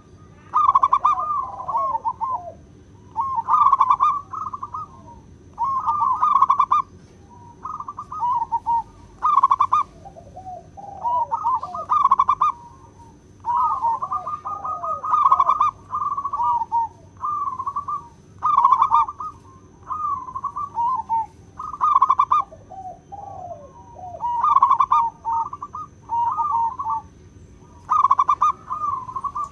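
Zebra dove cooing: a long run of short, rapidly trilled coos, a phrase every couple of seconds, some ending in falling notes.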